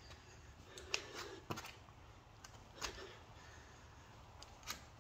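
A man breathing hard between burpee reps, a few short heavy exhales, with several sharp taps and scuffs.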